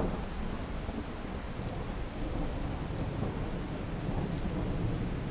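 Steady rain and wind noise with a deep rumble underneath, the sound of stormy weather.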